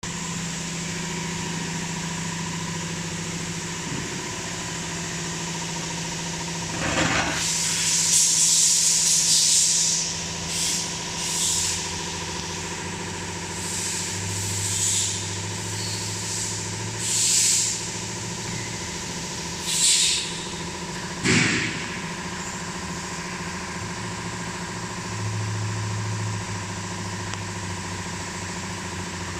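Machinery running with a steady hum and a constant whine. Several short hissing bursts come and go through the middle, two of them sharper and fuller.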